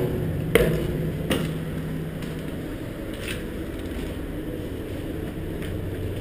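Footsteps on a steel deck, a few sharp steps in the first second and a half and then fainter, over a steady low machinery hum inside a ship's hull.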